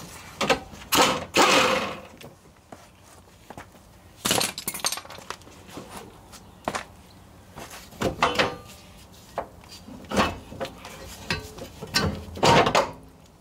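Irregular metal clanks, knocks and scrapes as a homemade coilover strut, its top bolts undone, is worked loose and pulled out of a Toyota AE86's front suspension. The loudest bursts come about a second in and near the end.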